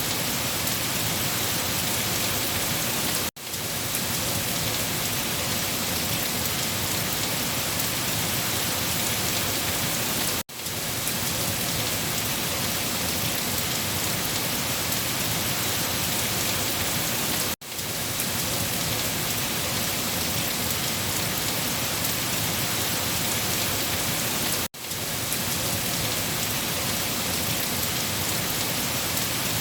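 Steady rain falling, a dense even hiss of drops. It drops out briefly four times, about every seven seconds, cutting off and swelling back within a moment.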